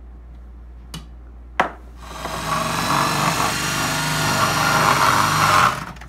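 KitchenAid 14-cup food processor motor starting about two seconds in and running for about four seconds while vegetables are shredded through the disc, growing louder, then cutting off sharply. Two short clicks come just before it starts.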